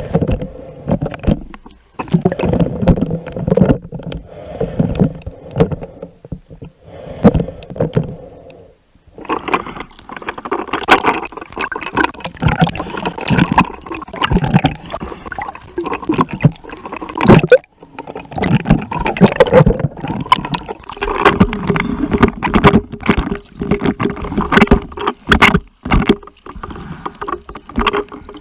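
Choppy splashing of water and wind buffeting the microphone, in irregular loud bursts with sharp knocks, joined in the second half by a steady motor hum.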